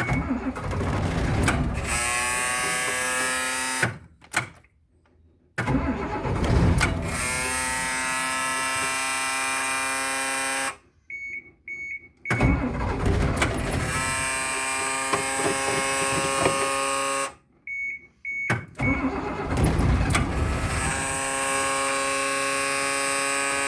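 1996 Blue Bird school bus engine cranking on the starter in four long attempts, turning over but not firing, on a cold start after sitting for weeks. Short high beeps from a dashboard buzzer sound in the pauses between cranks.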